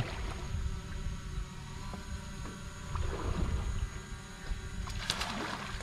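Boat motor running steadily at idle, a low rumble with a steady hum. A brief hiss about five seconds in.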